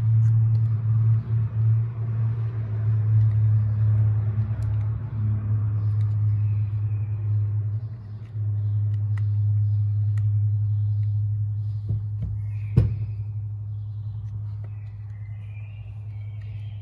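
Steady low hum, dipping briefly about eight seconds in, with one sharp click about thirteen seconds in.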